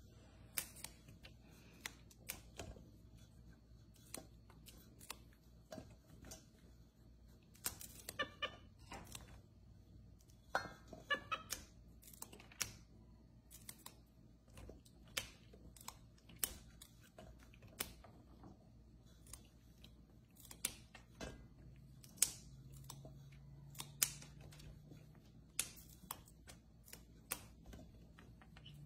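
Irregular crisp clicks and snaps of fresh green beans being broken and trimmed by hand, with beans knocking against a stainless steel bowl, coming every second or so.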